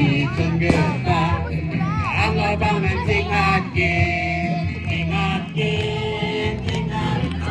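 Background music: a song with a singing voice over a steady bass and beat.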